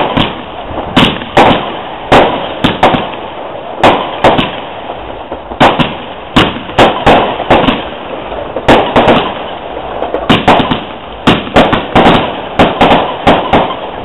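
Aerial fireworks going off: a rapid, irregular series of loud bangs, two or three a second, each trailing off in a short echo, with a brief lull about halfway through.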